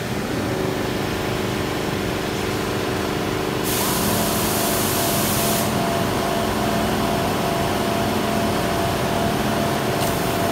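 Steady hum of running machinery, holding several tones, with a loud burst of hiss lasting about two seconds about four seconds in and a brief second hiss near the end.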